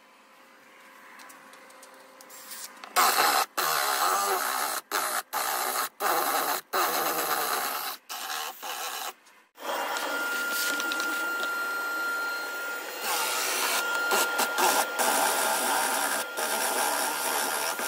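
Cordless drill boring a hole into a wooden tabletop with a large bit. It runs in short bursts on the trigger from about three seconds in, then runs continuously through the second half.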